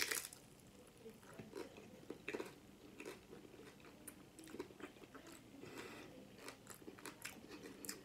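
Close-up chewing of a crunchy nacho cheese taco: irregular crunches and wet mouth clicks, with the loudest crunches right at the start.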